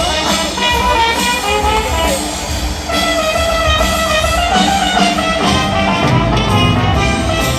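Live rock band playing an upbeat instrumental passage with horns and a steady beat, heard in a concert crowd recording.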